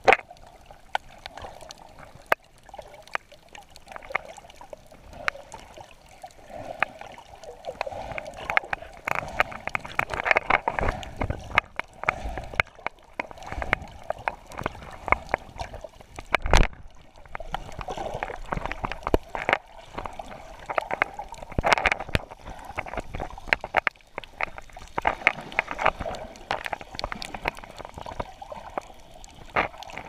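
Water sloshing and gurgling as heard underwater through a GoPro's waterproof housing, a muffled rushing that swells and fades, with many sharp clicks and a few louder knocks.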